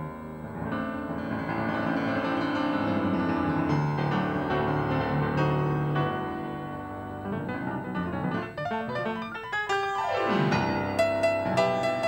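Upright acoustic piano playing a solo jazz ballad: held, ringing chords, then a fast run sweeping down the keyboard about ten seconds in and short, accented chords near the end.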